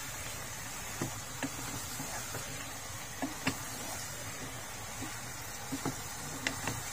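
Wooden spoon stirring chopped tomatoes in a steel pot, with several light knocks of the spoon against the pot over a steady low hiss of the cooking.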